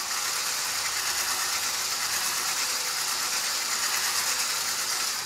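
Electric mixer with a whisk attachment running steadily at its lowest speed, beating flour into a cake batter in a glass bowl. It cuts off at the very end.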